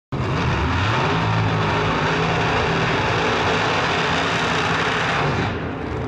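Ford Probe drag car doing a burnout: the engine held at high revs, with steady screeching, hissing noise from the spinning rear tyres. The engine note steps up about a second in.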